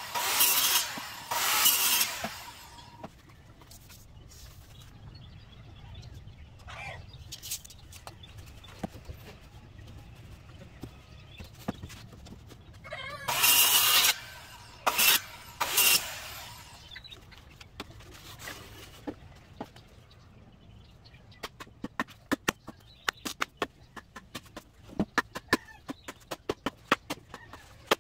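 Handheld electric circular saw cutting through bamboo poles in short bursts, once at the start and twice more about halfway through. Chickens cluck faintly in the pauses. Near the end comes a run of many short, sharp knocks and clicks.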